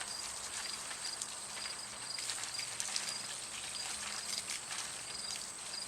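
Garden hose spraying water onto a person: a steady hiss with irregular spattering as the water hits cloth and ground.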